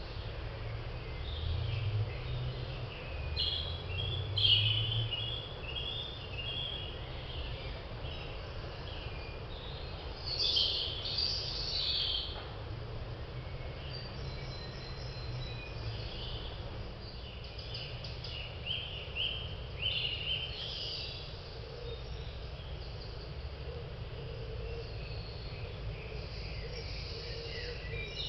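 Woodland birds singing, short high chirping phrases repeating one after another, over a low steady background rumble.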